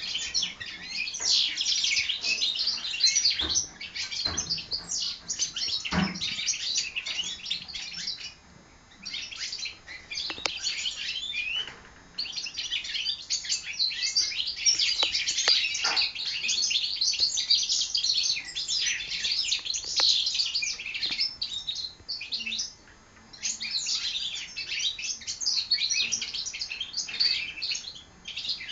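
Four-month-old goldfinch hybrid (mule) finches singing and twittering in their cages: a fast, continuous run of high chirps and trills, broken by a few short pauses.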